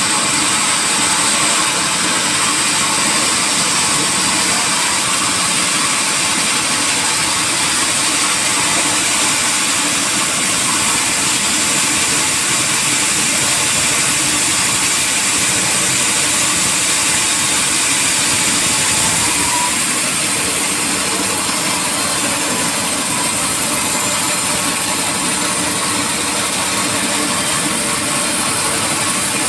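Sawmill machinery running steadily, a loud, even mechanical noise with a strong hiss-like high band, easing slightly about two-thirds of the way through.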